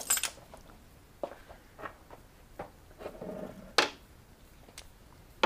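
Scattered light clicks, clinks and short scrapes of a socket and small metal carburetor parts being handled on a workbench, the sharpest click about four seconds in.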